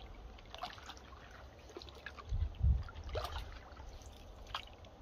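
Canoe paddle strokes in still swamp water: water dripping and trickling off the paddle blade with scattered small splashes. A low rumble comes about halfway through.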